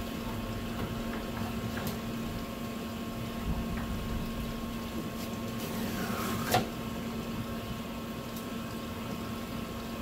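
A knife scraping along a plastic cutting board as it slides between the skin and flesh of an olive flounder fillet, with one sharper knock or scrape of the blade about six and a half seconds in. A steady machine hum runs underneath throughout.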